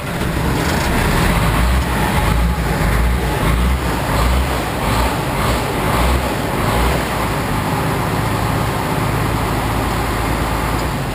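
6x6 truck engine running just after starting, surging up and down for the first several seconds, then settling to a steady idle about seven seconds in.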